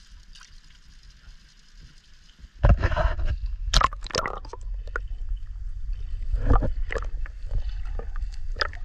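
Water heard through a camera's waterproof case as it goes under the creek surface about two and a half seconds in: from then on a loud, muffled low rumble and sloshing, with knocks and scuffs of the case against the water and the trap.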